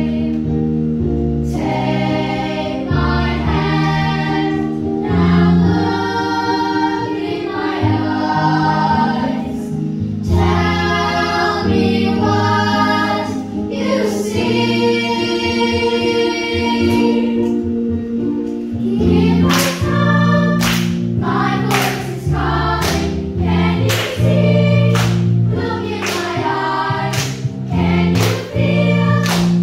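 Children's show choir singing together over sustained instrumental accompaniment. In the last third, sharp hand claps come in on the beat, about one a second or faster.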